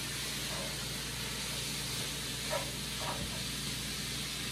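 Diced chicken breast sizzling steadily in a frying pan, stirred with a spatula, with a few faint scrapes.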